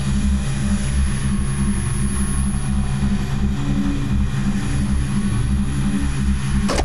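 Electrical apparatus humming: a steady low drone with a thin high whine above it, pulsing slightly.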